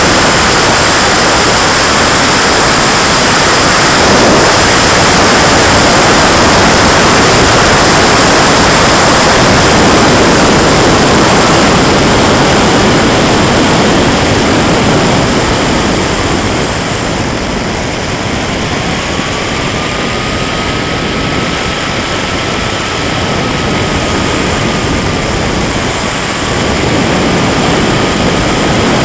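KingTech K80 turbine of a radio-controlled Tornado model jet running in flight: a loud rushing roar with a faint high whine that dips and rises in pitch. The roar eases a little past the middle and swells again near the end.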